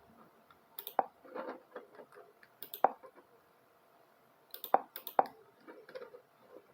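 Taps on a smartphone while navigating an app: four sharp clicks spaced one to two seconds apart, the last two close together, with soft handling rustles between.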